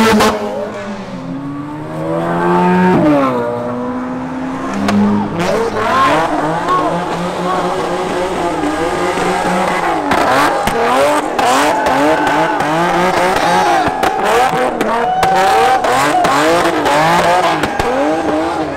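Car engine revving hard, its pitch rising and falling over and over in quick pulses, with tyre squeal as the car slides sideways in a drift on wet pavement.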